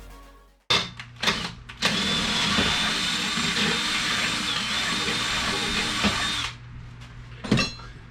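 Electric drill triggered in a few short bursts, then running steadily for about four and a half seconds as it drills a hole straight through a part, before stopping abruptly. A sharp clank comes about a second later.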